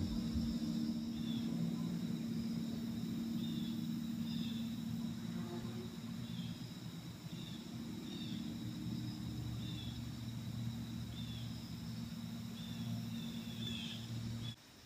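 Woodland ambience: a steady high insect drone with a bird giving short chirps about once a second, over a steady low hum. The sound cuts off abruptly near the end.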